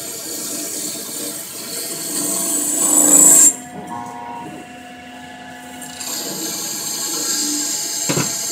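Syil EX250 CNC lathe turning a copper-bearing aluminium alloy part: a steady hiss of cutting that builds to its loudest about three seconds in, stops abruptly for about two and a half seconds leaving a low machine hum, then resumes. A single knock near the end.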